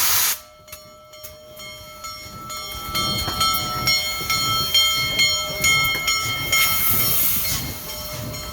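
A loud steam hiss from Union Pacific Big Boy 4014 cuts off abruptly at the start. The train's cars then roll past, building in loudness, with wheels knocking over the rail joints and several steady, high squealing tones from the wheels.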